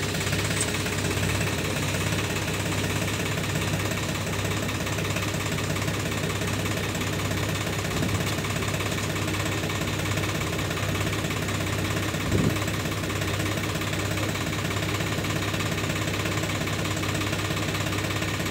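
Tractor's diesel engine idling steadily, with a short bump about twelve seconds in.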